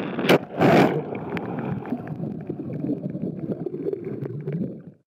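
Underwater water noise: a steady low rushing with scattered ticks, and two loud rushing bursts within the first second. It fades out near the end.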